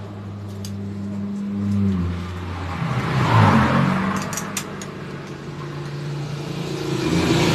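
A motor vehicle engine running, its pitch shifting about two to four seconds in, with a few light metallic clicks near the middle.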